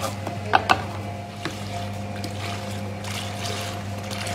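Whole milk pouring from a carton into a steel bowl of egg yolks, with two sharp clicks about half a second in, over a steady low hum.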